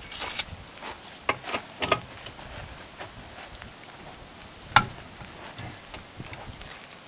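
Scattered sharp knocks and clicks over a quiet outdoor background, a few in quick succession in the first couple of seconds, one with a brief high metallic ring, and a single louder knock near the middle.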